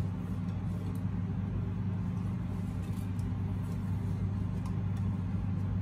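A steady low hum, like an electric motor or appliance running, with a few faint light taps as green chillies are dropped by hand into a pot of cut vegetables.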